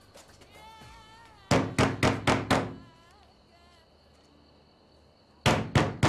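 A hand banging hard on a closed wooden door: a quick run of about five knocks around a second and a half in, then another run of knocks near the end. Faint voices come between the runs.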